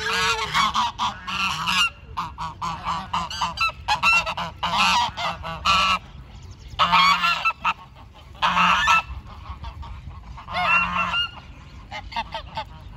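Domestic geese honking in several loud bouts, with short pauses between them.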